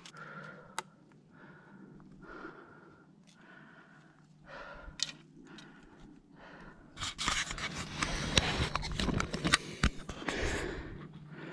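A person's heavy panting breaths close to the microphone, then from about seven seconds in loud rustling and snapping of dry twigs, brush and bark as hands work among them and lift a squirrel carcass.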